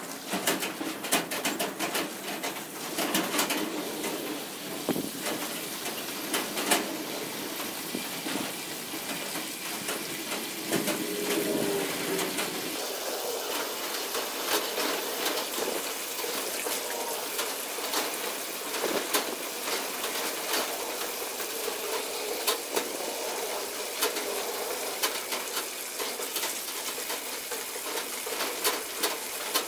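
Water from a garden hose spraying and splashing into the partly filled water tray of a CNC plasma table, filling it, with many small splashes and drips throughout.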